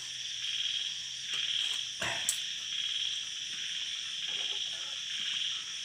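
Frogs and insects calling in a steady night chorus, a high trilling, with a faint knock about two seconds in.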